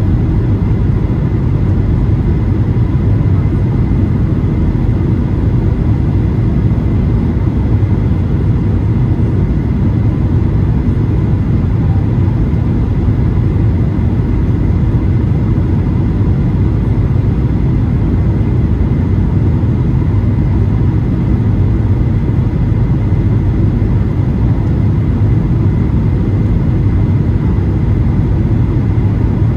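Steady low roar inside the cabin of a Boeing 737-800: its CFM56-7B engines and the rush of air, with faint steady high tones above it.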